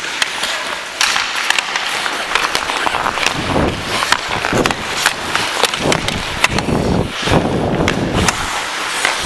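Hockey skate blades scraping and carving on ice, with sharp clacks of sticks against the puck and the ice scattered throughout.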